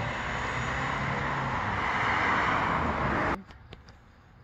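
A steady, loud rushing noise of a running vehicle that cuts off abruptly about three and a half seconds in. It leaves near quiet with a few faint clicks.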